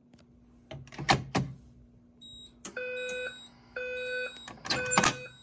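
A few sharp clunks about a second in and a short high beep, then the Simplex 4010 voice evacuation system's speakers sound three half-second tones about one a second apart: the temporal-three evacuation pattern that comes before the recorded voice message.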